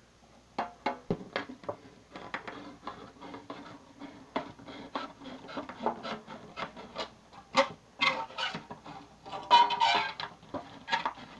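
Knife blade cutting through a thin metal cookie tin: irregular scraping clicks of steel on tin, a few each second, with a brief metallic ring about ten seconds in.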